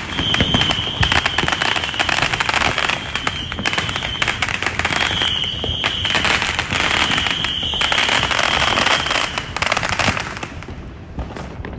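Fireworks going off: a dense run of rapid crackling pops with a steady high-pitched whistle over most of it, thinning out near the end.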